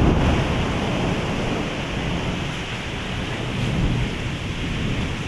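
Heavy rain with wind during a thunderstorm, as a rumble of thunder dies away in the first second; a weaker rumble swells briefly about four seconds in.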